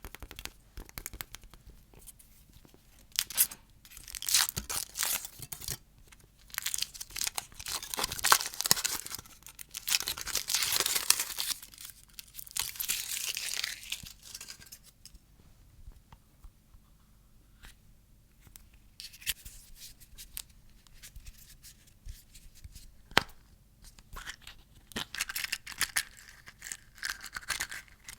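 Plastic candy wrappers being torn open and crinkled by hand, in irregular stretches of crackling and rustling. There are quieter pauses between the stretches, the longest about two-thirds of the way through.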